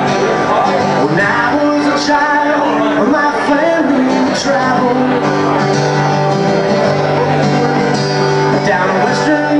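Live band playing a song: acoustic and electric guitars over a drum kit, with cymbal hits now and then and a voice singing.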